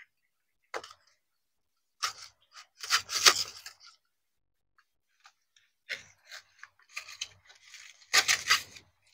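Strips of coconut leaf rubbing and crackling against each other as they are pulled taut through a woven knot. The sound comes in several short bursts with quiet gaps between, the loudest near the end.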